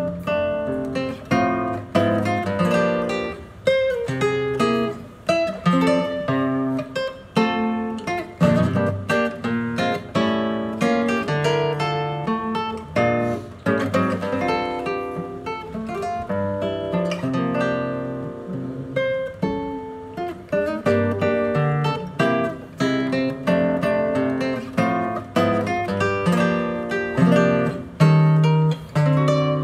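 Solo acoustic guitar playing a tango: a plucked melody over bass notes and chords.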